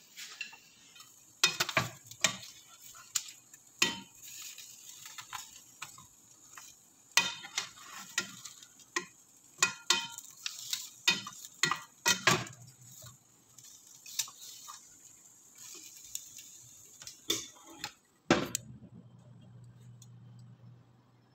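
Metal tongs clinking and scraping against a baking dish as roasting chicken pieces are turned over, in irregular sharp clicks. A knock comes near the end, followed by a steady low hum.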